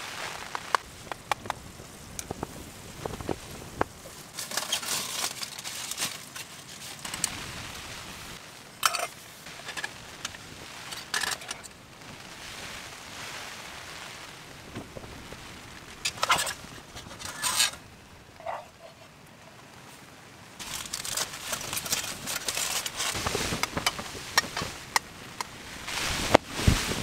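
A metal spoon scraping and clicking against a small camping frying pan and bowl as food is stirred and served, with crackling and foil crinkling. From about two-thirds of the way through, a steadier rush of wind noise builds.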